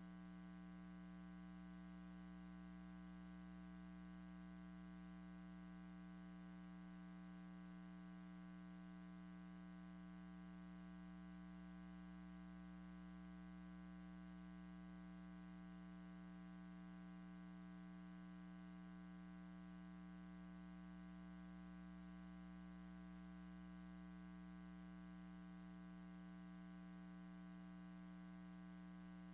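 Near silence apart from a faint, steady electrical hum with a buzz, unchanging throughout.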